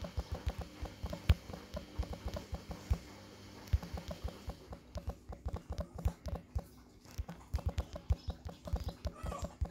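Typing on a smartphone's touchscreen keyboard: quick, irregular soft taps, several a second, in runs with brief gaps.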